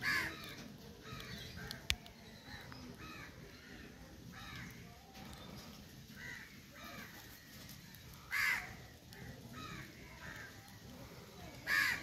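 Crows cawing over and over, with loud caws at the start, about eight and a half seconds in and near the end, and fainter calls between; one sharp click about two seconds in.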